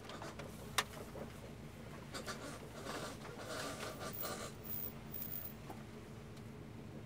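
Irregular scraping and rubbing noise over a steady low hum, with one sharp click about a second in. The noise comes from the front-left wheel area of a Subaru WRX and follows wheel speed, not engine speed.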